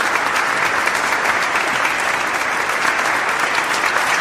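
Steady, dense applause: many hands clapping at once.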